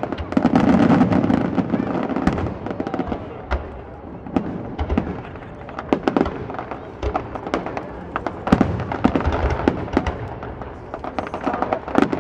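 Fireworks display: aerial shells bursting in a string of bangs and crackles, dense and loud for the first two seconds or so, then more scattered separate bangs.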